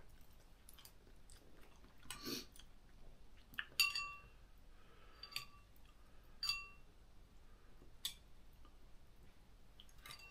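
Quiet chewing of ramen noodles, with a few light clinks of chopsticks against the bowl, some ringing briefly.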